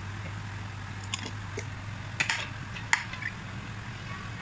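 A few sharp clicks and knocks from a china plate and wooden chopsticks being handled and set down on a kitchen counter, the loudest about three seconds in, over a steady low hum.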